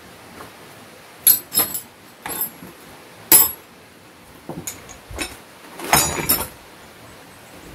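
Steel wrenches and spanners clinking against each other as they are packed into a canvas backpack: a series of sharp metallic clinks, with a quick cluster of them about six seconds in.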